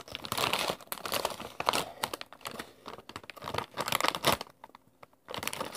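Crinkling of a plastic chip bag of Flamin' Hot Funyuns being handled and turned over, in irregular rustles, with a brief pause about four and a half seconds in.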